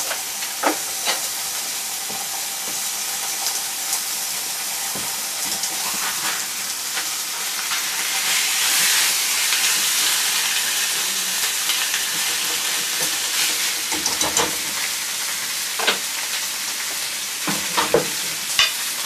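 Thin cuts of meat frying in hot oil in a pan: a steady sizzle that swells a little about halfway through, with scattered sharp pops and spatters.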